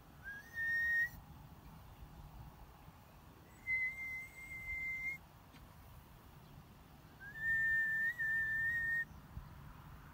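A person whistling three long notes a couple of seconds apart, the first and last sliding up into a held pitch, the last and longest with a slight wavering.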